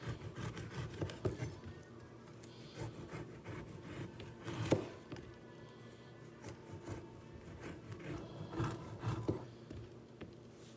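A big knife cutting pork belly (tocino) into small pieces: irregular knocks and scraping, with one sharp knock about four and a half seconds in. Soft background music plays under it.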